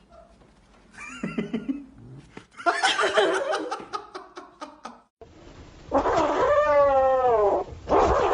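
Cats meowing: a short meow about a second in, a noisy stretch with sharp clicks, then, after a cut, a long drawn-out meow that bends in pitch, with another starting near the end.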